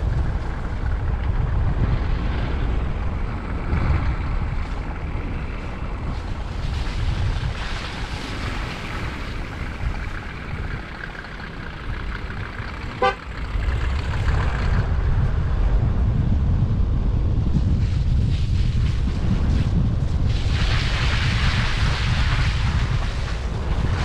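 Car driving on a road, its low rumble mixed with wind noise on the microphone that swells and fades, louder near the end. A single very short, sharp blip about halfway through.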